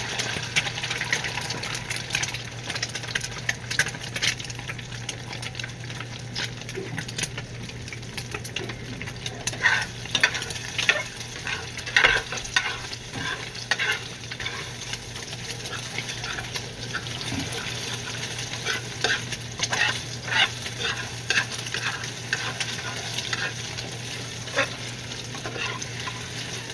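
Egg frying in hot oil: a steady sizzle with frequent sharp crackling pops.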